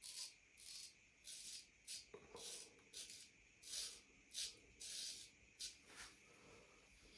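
A straight razor scraping stubble on lathered skin in short, separate strokes, about two a second.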